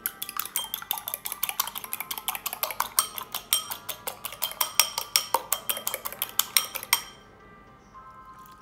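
Metal fork beating eggs in a small ceramic bowl: a fast run of clinks of fork against bowl, about seven a second, stopping about seven seconds in.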